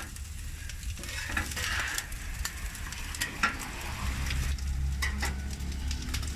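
Chopped taco meat sizzling on a hot flat-top griddle as it is stirred and scraped across the metal, with scattered sharp taps and clicks.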